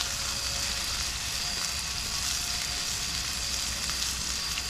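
Steady sizzling hiss with fine crackle, from a strip steak cooking over a campfire.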